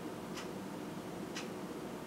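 Clock ticking steadily, about once a second: two sharp ticks.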